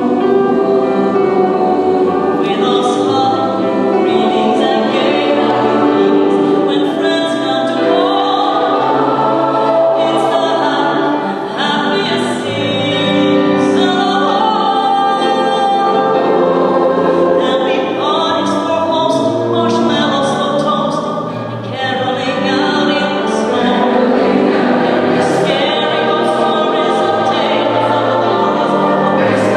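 Large mixed choir of men's and women's voices singing together in a church, the phrases held and moving, with brief breaths between phrases about a third and two-thirds of the way through.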